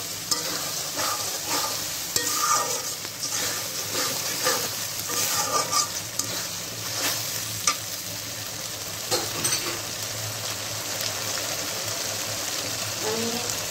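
Flat metal spatula scraping and stirring onion and spice paste in a wide metal pan over a steady sizzle, with frequent irregular scrapes and taps against the pan. The masala is being fried down (kashano).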